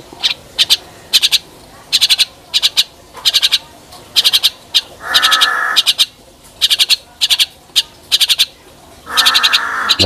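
Javan mynas calling: short, rapid chattering rattles repeated every half second to a second, with two longer harsh screeches about five seconds in and near the end.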